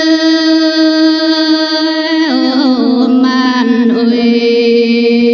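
A solo voice singing Red Dao folk song in long held notes. It holds one note, then slides down with a wavering ornament about two seconds in and settles on a lower held note.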